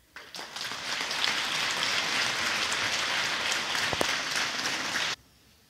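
Theatre audience applauding: dense clapping that builds in quickly and stops abruptly about five seconds in.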